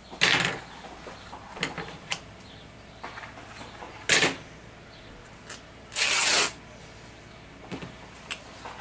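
Cloth and scissors being handled on a wooden table while a strip of homespun fabric is worked into a bow: three short, loud rasps, one just after the start, one about four seconds in and a longer one about six seconds in, with a few light clicks between.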